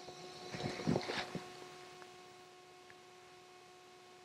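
Rustling of clothing and a few light knocks as a hunter shifts and raises his rifle in a tree stand, clustered in the first second and a half. After that only a faint, steady electrical hum remains.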